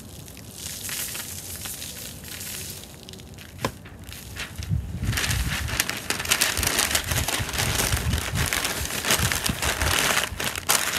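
Pink butcher paper crinkling and rustling as it is folded and pressed around a chicken on a rotisserie spit, louder and denser from about five seconds in, with a single click just before.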